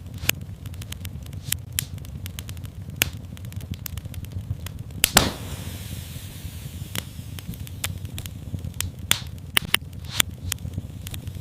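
Wood fire in a fireplace crackling: irregular sharp pops over a low steady rumble, with one louder pop about five seconds in.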